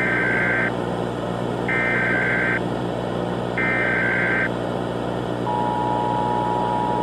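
Emergency Alert System SAME header: three data bursts of just under a second each, about two seconds apart. About five and a half seconds in, the steady two-tone attention signal begins. All of it sits over a background hiss and low hum.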